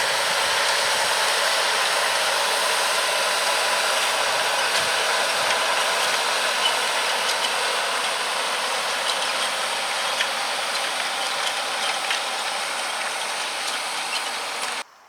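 John Deere 6195R tractor running steadily while pulling a five-furrow plough and furrow press, with a dense clicking and rattling of metal. The sound cuts off suddenly near the end.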